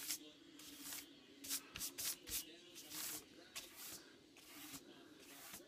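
A paintbrush scrubbing acrylic wash across a drawing board: a run of irregular, quick brushing strokes.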